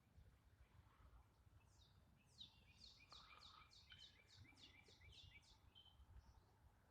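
Faint bird song: a quick run of about a dozen falling whistled notes, around three a second, over faint low background noise.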